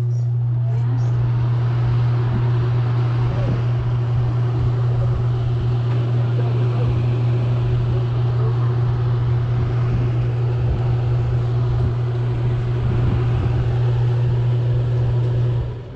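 Fahrenheat FZL4004F 4000-watt 240-volt wall heater's fan running on its first test after installation: a loud steady hum with a rush of air through the grille, cutting off near the end.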